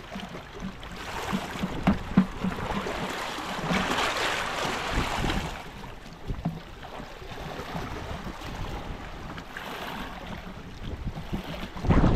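Sea water lapping and sloshing around a small fishing boat, with wind buffeting the microphone. There are a few knocks about two seconds in and a louder thump near the end.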